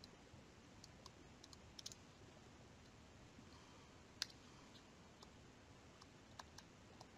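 Faint, sparse clicks of a stylus tapping on a tablet screen while handwriting, over a low steady hiss; one louder click about four seconds in.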